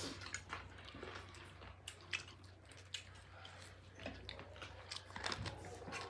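Mukbang eating sounds: someone chewing and biting food close to the microphone, with irregular soft crunches and mouth clicks.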